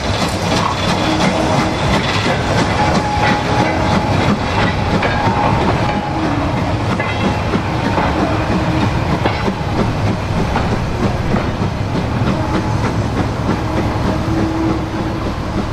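Steam-hauled goods train of hopper wagons and a brake van rolling slowly past. Its wheels clatter over the rail joints in a steady stream of clicks, with short thin tones now and then.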